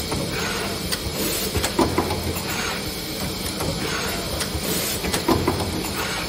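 Automated solar-cell handling machine running, its gripper head shuttling cells back and forth. Hisses and sharp clacks repeat every second or so over a steady machine hum.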